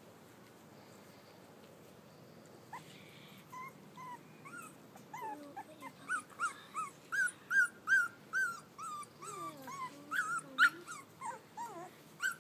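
Three-and-a-half-week-old Llewellin setter puppies whining and yelping in short, high calls, starting about three seconds in. The calls come a few at a time at first, then about two or three a second from around six seconds in.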